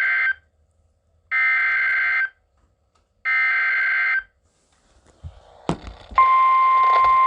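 Weather radio receiving an Emergency Alert System message on NOAA Weather Radio. The end of one screechy SAME digital header burst is followed by two more, each about a second long with a second's gap. After a click, the steady warning alarm tone starts about six seconds in, signalling that a warning follows.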